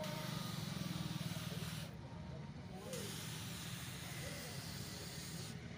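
Handheld paint spray gun hissing as it sprays, over a low steady hum. The hiss stops for about a second near the middle, starts again, and cuts off near the end.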